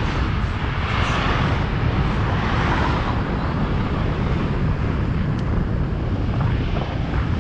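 Steady rushing noise from riding a bicycle alongside road traffic, with wind rumbling on the action camera's microphone and car traffic underneath. A brighter swell of noise rises and fades about one to three seconds in.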